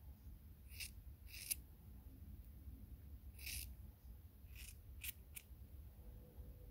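Grooming scissors snipping a dog's fur, about six quick, faint snips spaced irregularly.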